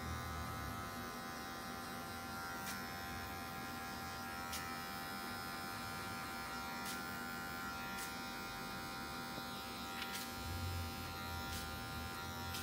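Electric hair clippers fitted with a half guard, buzzing steadily as they fade the hair at the back of the neck, with a few faint clicks.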